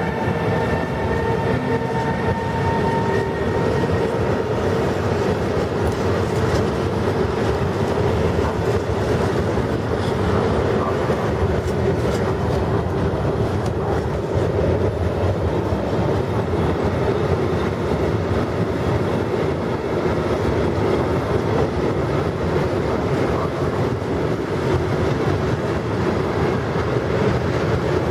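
Covered freight wagons of a passing freight train rolling by at speed: a steady, loud rumble and clatter of steel wheels on rail that does not let up. A high whine, from the electric locomotive that has just passed, fades out about three seconds in.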